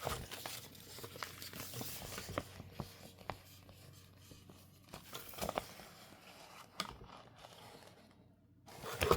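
Rustling and crinkling of plastic and paper packaging with many small clicks and taps as rolls of PET and washi tape and sticker sheets are handled, busiest in the first few seconds and fading near the end.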